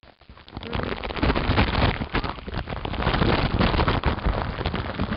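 A person sliding on his body along a wet plastic sheet: water splashing and plastic scraping, with rubbing and knocking right against the camera. It starts about half a second in.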